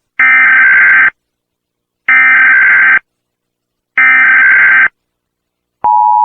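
Emergency Alert System header: three bursts of rapid two-pitch data tones, each just under a second long and about a second apart. Near the end the steady two-tone EAS attention signal starts.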